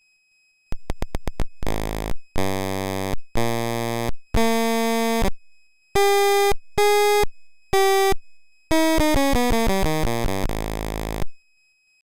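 Home-built voltage-controlled oscillator based on a 7555 timer chip, played from a keyboard controller. A few quick clicks come first, then single synth notes at changing pitches, a fast run of short notes falling in pitch, and a lower held note that cuts off.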